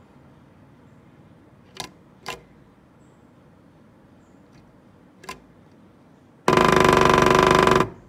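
A black-rumped flameback woodpecker drumming on a wooden window frame close by: three single knocks, then about six seconds in a fast, even drum roll lasting about a second and a half, the loudest sound here.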